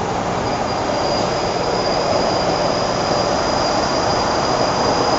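First-generation MTR M-Train electric multiple unit running between stations, heard from inside the car: a steady dense rumble of wheels and running gear, with a thin high-pitched whine held throughout, growing slightly louder.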